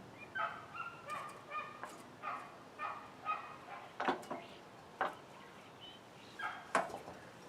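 An animal's short pitched calls, repeated about twice a second, with a few sharp clicks among them.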